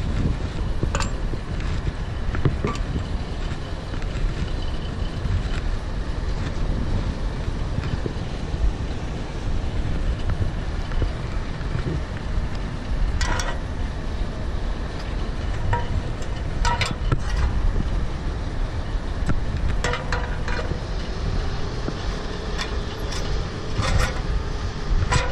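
Steady low rumble of wind on the microphone high up an aerial ladder, with a few sharp knocks and clinks as boots and gear strike the metal rungs during the climb.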